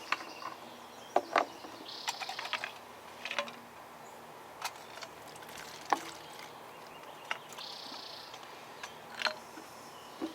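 Fuel being poured off from a chainsaw's cleaned-out fuel tank, two brief quiet trickles about two seconds and eight seconds in. Scattered small clicks and knocks of the tank and container being handled.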